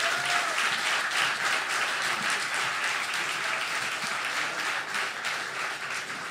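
Audience applauding: many hands clapping together in a steady patter that eases slightly near the end.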